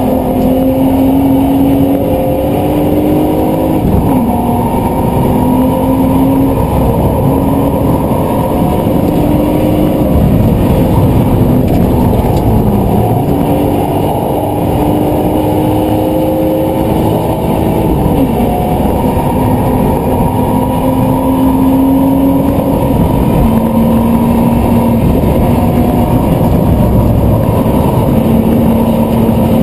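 BMW Z4 engine heard from inside the cabin at speed, with road noise beneath. The engine note climbs with the revs and drops back at gear changes, several times.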